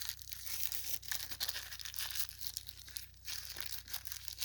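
Plastic packaging crinkling and rustling as it is handled and pulled at, an irregular run of crackles.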